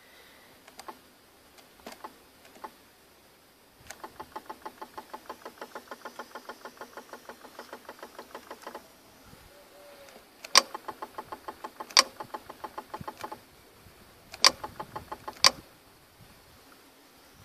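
BMW E36 air-conditioning compressor clutch being switched by diagnostic software: an even ticking of about six clicks a second for about five seconds, then four sharp, loud clicks one to two and a half seconds apart, with quicker ticking between them.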